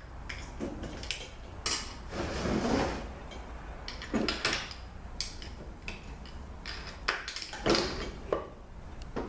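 Metal knocks, clanks and a longer scrape as the front pump of a 200-4R automatic transmission is worked loose and pulled from the transmission case.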